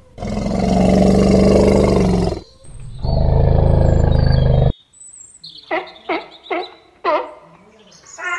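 African elephants giving two long, loud roaring calls, the first about two seconds and the second about a second and a half. In the second half comes a run of short barking calls, each dropping in pitch, from sea lions.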